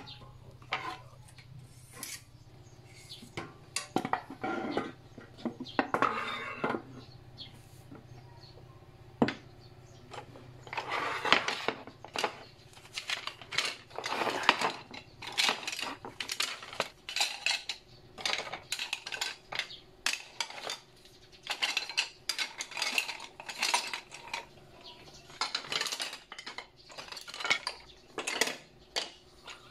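Kitchen utensils knocking and clinking as they are set into holders: a knife going into a wire rack, wooden cutting boards and wooden spoons and spatulas set into ceramic utensil holders. A long run of short knocks and clatters, busier from about ten seconds in.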